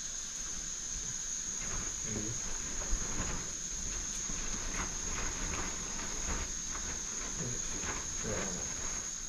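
Crickets trilling, one steady high-pitched tone throughout, with light clicks and scrapes of a small knife cutting raw meat over a metal tray.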